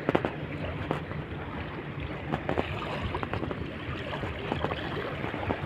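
Strong wind buffeting the microphone over the wash of sea water around a small boat, with scattered small clicks and knocks.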